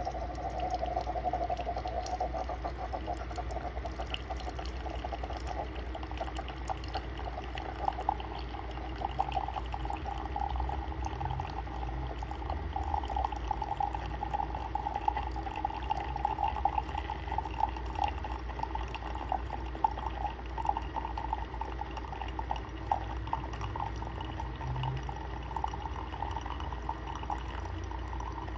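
CHULUX single-serve capsule coffee maker brewing: hot coffee streams and spatters into the mug with small crackles and pops, over a steady low hum.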